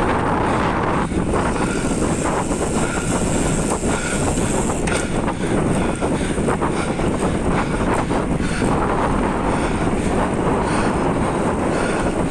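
Steady rush of wind over the microphone of a camera moving at riding speed with road bicycles, mixed with tyre and road noise on a concrete road and scattered small knocks.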